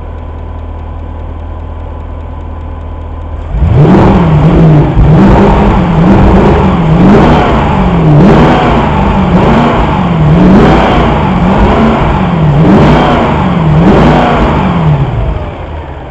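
Mercedes CLK 63 AMG's 6.2-litre V8 idling, then blipped up and down about once a second for around eleven seconds, then settling back to idle near the end. It is being revved to test fuel pressure, which sags under revs: the fuel pump is failing.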